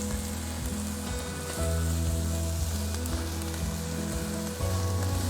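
Chicken skewers sizzling steadily on the grill grate over hot direct charcoal heat, with steady background music.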